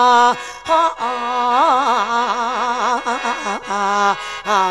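Mor lam music: a long, ornamented sung vocal line with wavering, gliding pitch and a few held notes, over khaen mouth-organ accompaniment.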